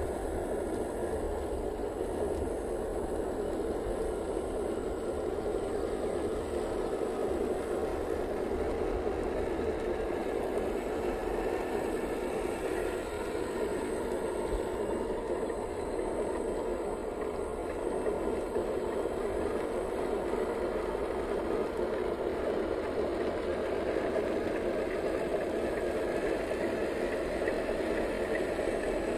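A 1/10-scale RC crawler's 540-size electric motor and geartrain run steadily under load as its mud-caked tyres spin and churn through wet, sandy mud.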